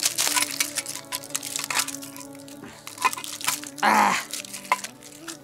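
Plastic protective wrapping on a bicycle frame crinkling and crackling as it is cut and pulled off with a boti blade, with one louder rustle about four seconds in. Soft background music with held notes plays underneath.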